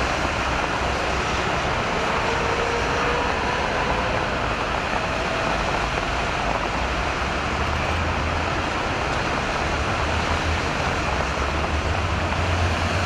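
Heavy road traffic on a rain-wet highway: a steady din of engines and tyres on wet asphalt, with a strong low rumble.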